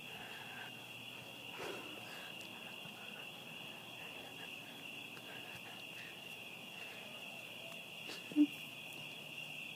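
Crickets chirring in a steady high-pitched drone. There is one brief thump about eight seconds in.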